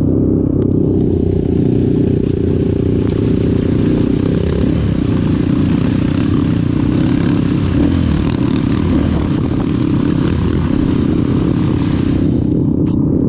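Trail motorcycle engine running steadily while riding, with a rushing noise over it for most of the time that eases near the end.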